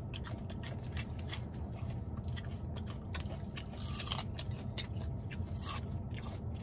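Close-up chewing and crunching of food: irregular small crunches and clicks, one slightly longer crunch about four seconds in, over a steady low hum.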